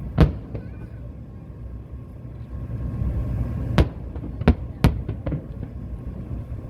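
Aerial fireworks shells bursting: one sharp bang just after the start, then a lull of about three seconds, then a run of bangs in quick succession with smaller cracks among them.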